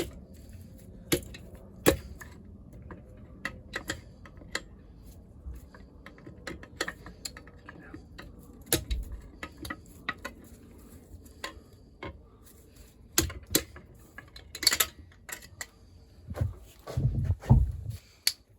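Irregular metallic clicks, taps and clinks of engine parts and hand tools being handled during a strip-down, with a few duller knocks near the end.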